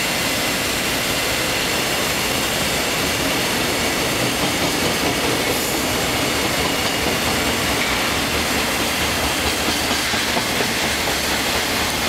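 Container flat wagons of a freight train passing through: a steady rolling rumble of steel wheels on rail, with a rhythmic clickety-clack of wheels over rail joints.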